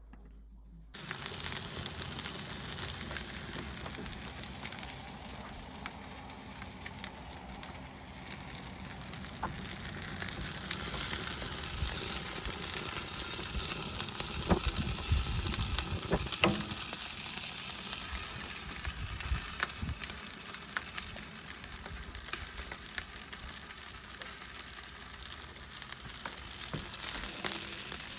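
Char siu-marinated chicken thigh skewers sizzling steadily as they cook, starting about a second in, with a few light knocks around the middle.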